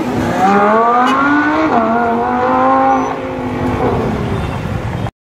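Lamborghini sports car's engine accelerating away hard: its pitch climbs, drops at an upshift about two seconds in, then climbs again more slowly and fades as the car pulls off. The sound cuts off abruptly about five seconds in.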